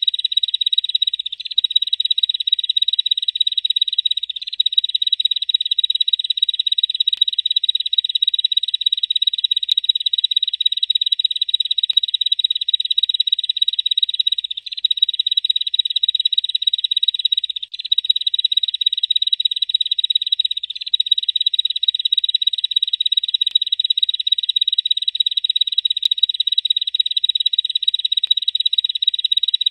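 Bar-winged prinia (ciblek) giving its long continuous buzzing trill, the 'ngebrem' call: a rapid, high-pitched rattle held almost without pause, broken only by a few brief gaps.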